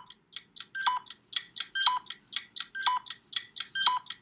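Electronic countdown sound effect: quick high ticks, about four a second, with a brighter beep on each second, over a faint low hum.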